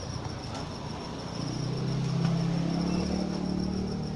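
Crickets trilling steadily in a high, fast-pulsing chirp. About a second and a half in, a low engine hum comes in and stays, becoming the loudest sound.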